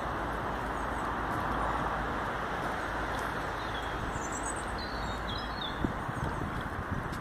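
Steady outdoor background noise with a few faint, high bird chirps about four to five seconds in, and two soft knocks near the end.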